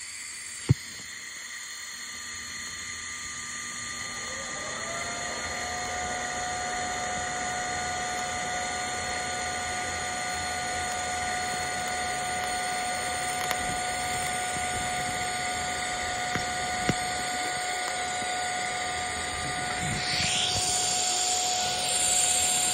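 TIG welding arc fusing a broken carbon-steel bandsaw blade with ER70S-2 filler wire: a steady electric buzz and hiss with a high whine that slides up in pitch about four to five seconds in and then holds. A sharp click comes just after the start.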